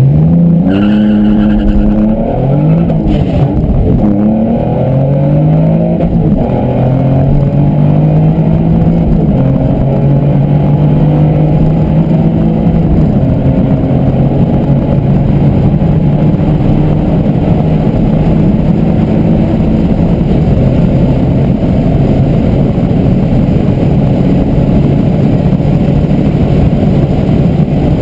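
Twin-turbocharged Nissan 350Z's 3.5-litre V6 under full throttle at high speed, heard inside the cabin. The revs climb and drop twice in the first few seconds as it shifts up, then it pulls long and steady in a high gear with only a slow rise in pitch.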